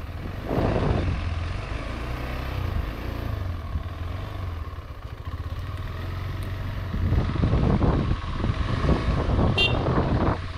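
Motorcycle engine running at low speed on a rough dirt track, swelling briefly about a second in and running louder and rougher over the last few seconds. A short high chirp sounds near the end.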